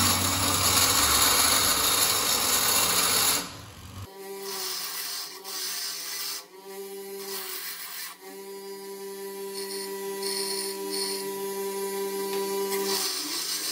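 Haina bench grinder running with a metal workpiece pressed against its stone wheel, throwing sparks. The sound is loud, dense grinding over a motor hum for the first three and a half seconds, then drops suddenly to a quieter steady whine broken by a few short gaps.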